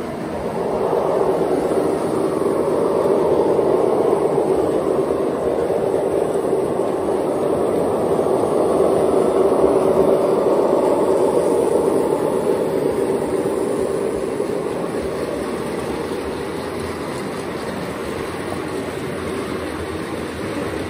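An O gauge model train running on the layout track, giving a steady rumble of motor and wheels. It grows louder over the first few seconds, is loudest around the middle, then slowly fades.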